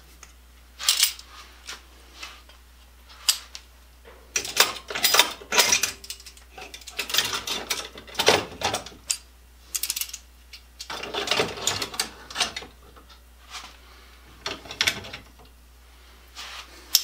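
Steel locking clamps of the vise-grip type clicking and clanking against each other and the tool rack as they are handled, hung up and taken down, in irregular spells of sharp clicks and rattles with short pauses between.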